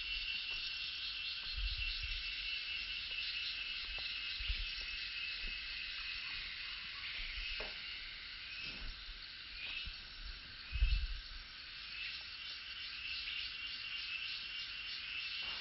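Steady night chorus of insects, crickets trilling on and on. A few dull low thumps are heard, the loudest about eleven seconds in.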